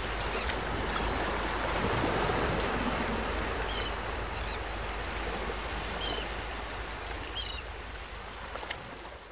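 Sea surf washing on a shore: a steady rush of waves with a few short high chirps, slowly fading out near the end.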